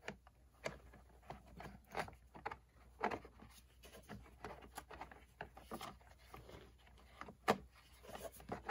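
Scattered light clicks and taps of hard plastic parts being handled and fitted on an RC truck chassis, with one sharper knock about seven and a half seconds in.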